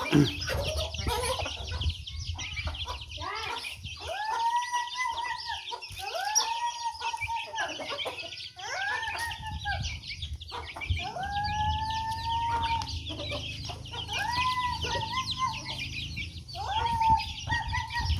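Domestic chickens calling while they feed: a string of drawn-out calls, each about a second long and one held for about two seconds, over steady high peeping and chatter from the chicks.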